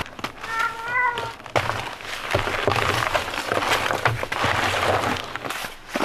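A cat meows once, a wavering call about a second long, near the start. Then comes louder rustling and clatter as a folding foam sleeping pad is pulled from a backpack and handled.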